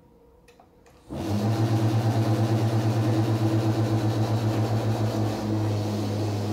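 Electric football board's vibrating field switches on about a second in, after a few faint clicks, and buzzes loudly with a low, steady hum. The hum wavers rapidly, then evens out near the end.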